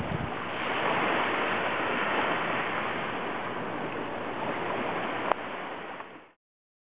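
Small waves breaking and washing up on a sandy beach, a steady rush of surf that swells slightly about a second in and fades out near the end. A brief click about five seconds in.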